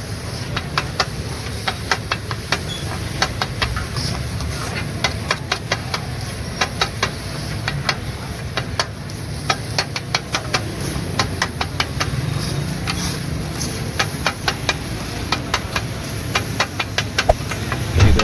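Street-stall cooking: utensils striking the cookware in sharp, irregular clinks, several a second, over a steady low rumble.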